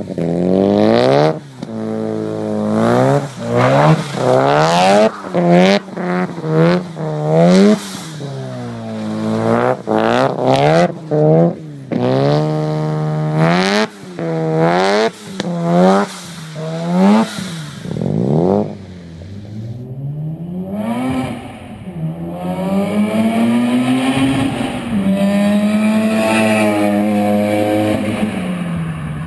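Turbocharged 13B twin-rotor rotary engine of a 1989 Mazda RX-7 Turbo II, revved hard in quick repeated bursts, about one a second, as the car spins its wheels in snow. After about 19 seconds a different Mazda RX-7's exhaust takes over with a steadier note that climbs slowly, dips and climbs again.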